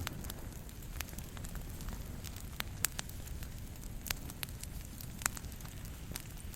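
Brush fire burning: a bush in flames with a steady low rumble and sharp, irregular crackles and pops from the burning twigs.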